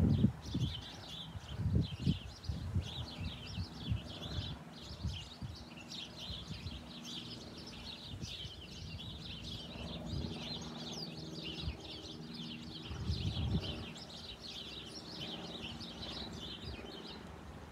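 Small birds twittering continuously in a dense run of short, high chirps that fade out near the end. Some low rumbling bumps come through as well, loudest in the first couple of seconds and again about 13 seconds in.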